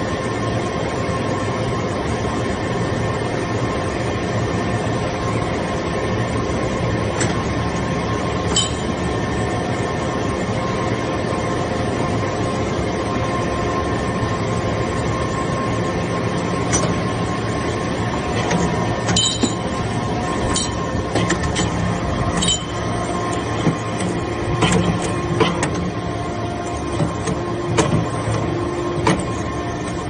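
Vertical hydraulic briquetting press for metal shavings running: a steady hum and whine from its hydraulic power unit, with scattered sharp metallic clinks and knocks that come more often in the second half.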